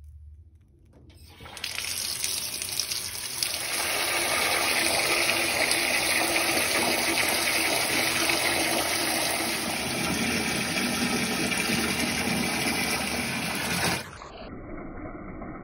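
Water running steadily from a tap into a bathtub as it fills. It starts about a second in, grows fuller, and cuts off suddenly near the end.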